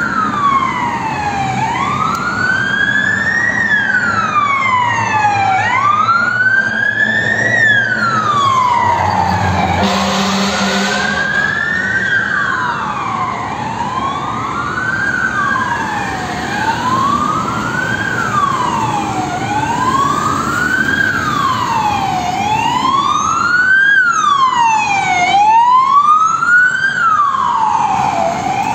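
Emergency sirens from a Scania fire engine and a gas emergency van on an alarm run: a loud wailing siren rising and falling about every two seconds, with a second, fainter siren sweeping over it, clearest in the last few seconds. A low engine rumble runs underneath, and there is a short louder burst about ten seconds in.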